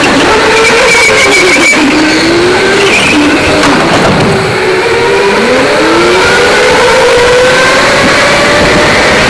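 Electric go-kart motors whining, heard from the driver's seat. The pitch glides down and back up as the karts slow for the corners and speed up again, over a steady rush of tyre and wind noise.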